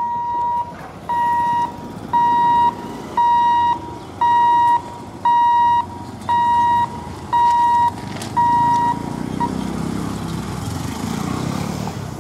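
Level-crossing warning buzzer sounding while the boom barrier lifts: a steady, high electronic beep, each about half a second long, repeating about once a second nine times, then stopping. Motorcycle and car engines then pull across the tracks as the traffic moves off.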